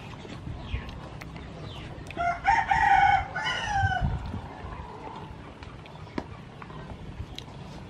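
A rooster crowing once, about two seconds in. The call lasts about two seconds and drops in pitch at the end.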